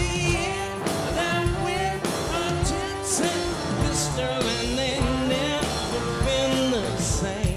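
Live blues-rock band playing between sung lines: electric guitar lead with bending, sliding notes over drums, with a cymbal crash about once a second.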